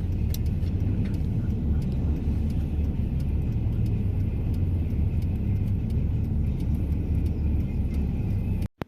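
Vehicle driving, a steady low rumble of engine and road noise.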